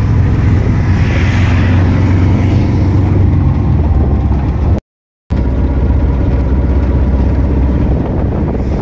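Engine of a small passenger vehicle running steadily while riding inside it, with road and wind noise. The sound drops out briefly about halfway through.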